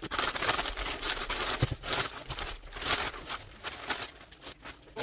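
A shipping bag being pulled and torn open by hand, its material rustling irregularly, coming and going.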